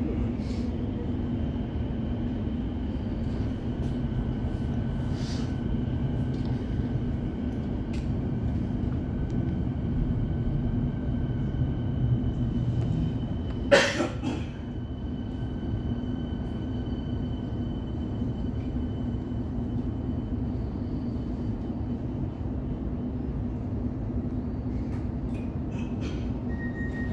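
Electric suburban train running, heard from inside the carriage: a steady rumble of wheels on the track with a faint, steady whine over it. One sharp knock about halfway through.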